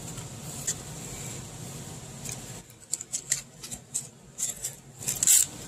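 Scratching and crackling of the dirty pleated paper element being pulled by hand out of a cut-open old fuel filter canister: a string of short, irregular scratchy clicks in the second half, the loudest near the end. A low steady hum stops about two and a half seconds in.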